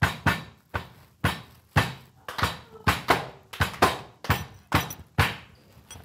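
A wooden rolling pin beating a towel-wrapped plastic bag of roasted chickpeas to crush them into powder: dull, even blows about two a second, stopping a little before the end.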